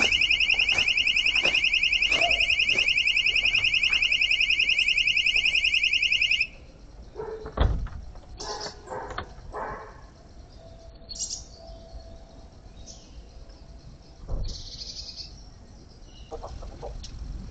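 A loud, high-pitched electronic alarm sounding with a fast warble, cutting off suddenly about six and a half seconds in. After it stops come a few faint clicks and knocks, with one sharper knock a second later.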